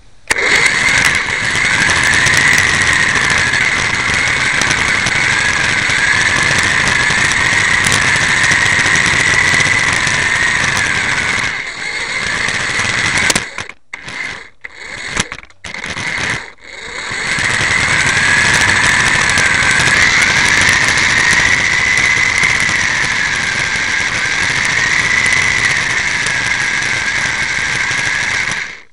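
Small electric motor and gears of a radio-controlled mini car whining as it drives, the pitch wavering up and down with speed. It cuts out in a few short breaks about halfway through.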